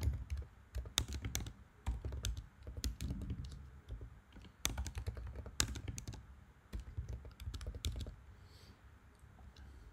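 Typing on a computer keyboard: irregular runs of key clicks that stop about eight seconds in.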